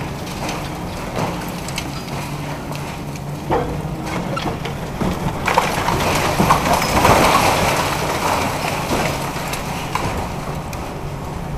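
A demolition excavator's hydraulic concrete crusher breaking a concrete floor slab: crunching, cracking and rubble falling over the steady drone of the diesel engine. The crunching and falling debris are loudest about halfway through.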